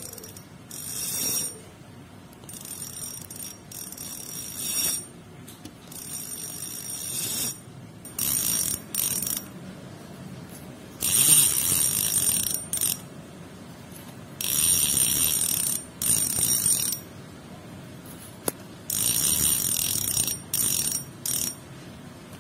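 Spinning fishing reel's clicker ratcheting in short bursts as the reel is turned. The first half is the original thin clicker spring, quieter; from about eleven seconds in the bursts come louder and sharper with a stiffer replacement clicker spring fitted.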